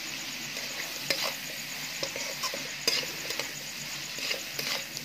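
Metal spatula scraping and knocking against a large wok (kadai) while stir-frying egg, prawns, chicken and shredded vegetables, over a steady sizzle. Sharp scrapes stand out about a second in, near three seconds and again between four and five seconds.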